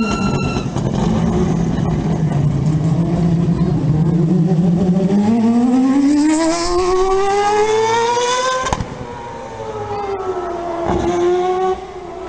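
Mazda 787B's four-rotor R26B rotary engine running loud as the race car passes and pulls away. The note falls and holds low for several seconds, then climbs steadily as it revs up, breaks off sharply, and falls away, with a short rise and fall again near the end.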